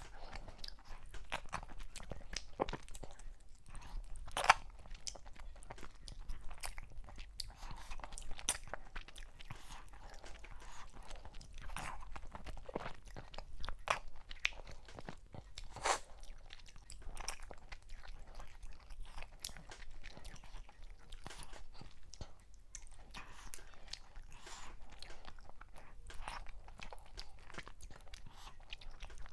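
Close-miked chewing of mackerel, fufu and okra soup, with a steady run of sharp mouth clicks and crunches. One click about four and a half seconds in is the loudest.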